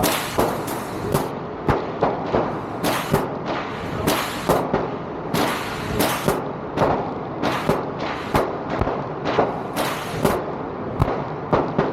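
Gunfire at a shooting range: a rapid, irregular string of about two shots a second, some louder and some softer.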